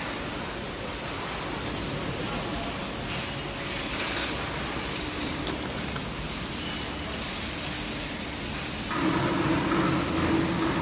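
Steady hiss-like din of running factory machinery, with a steady hum joining about nine seconds in and making it louder.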